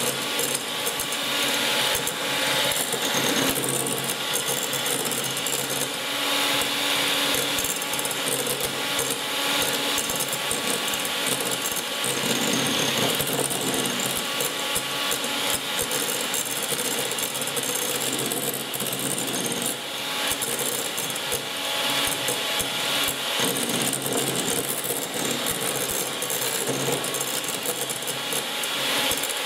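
1980s Gorenje MGA M202 electric hand mixer (130 W) running steadily, its twin beaters whipping cream that has already thickened to soft whipped cream in a glass bowl. The motor's whir carries a dense, continuous crackle of fine ticks.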